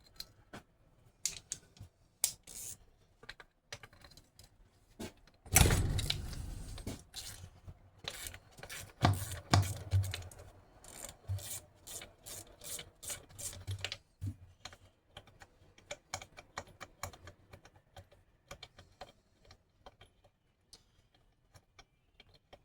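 Small metal parts and hand tools clicking and clinking as a starter motor is taken apart by hand, with a louder clunk about five and a half seconds in. The clicking is busiest in the middle and thins out toward the end.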